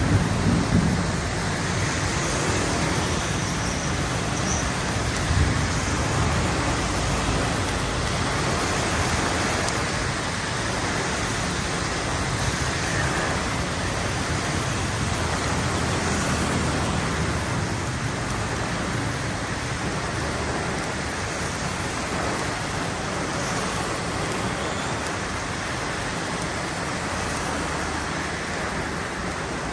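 Heavy tropical rain pouring steadily onto a road, mixed with the wet tyre hiss of motorcycles and cars passing on the flooded tarmac. A low rumble of thunder dies away in the first second.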